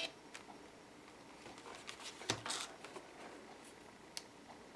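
Faint handling of a small plastic Bluetooth label maker and its freshly printed label strip: scattered light clicks, a soft knock about two seconds in, and a brief rustle just after.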